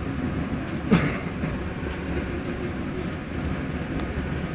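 Low, steady rumble from a trolleybus being pushed along through snow, with one sharp knock about a second in.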